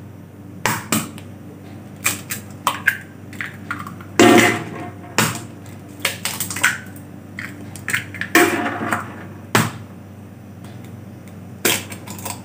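Kitchen preparation sounds: irregular knocks and clatters of utensils and cookware, with two longer, louder clattering sounds about four and eight and a half seconds in, over a steady low hum.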